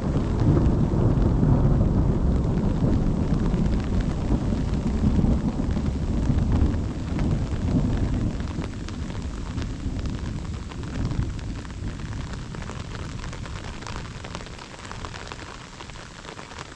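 A long roll of thunder over steady rain. The deep rumble is loudest in the first few seconds and slowly dies away, while the patter of rain continues.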